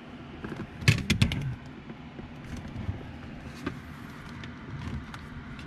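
Plastic dashboard trim clicking and knocking as a bezel is handled and pressed into place: a quick burst of sharp clicks about a second in, then scattered lighter clicks.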